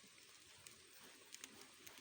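Near silence: faint background hiss with a few small, faint clicks.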